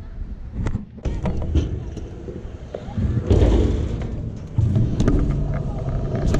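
Stunt scooter wheels rolling on skatepark concrete with a low rumble, broken by a string of sharp clacks and thumps as the deck and wheels hit the ground and ramp.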